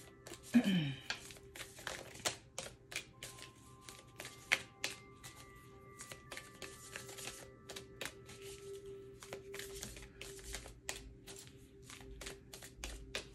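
A deck of cards being shuffled by hand: a run of quick, irregular snaps and riffles, over faint steady background tones.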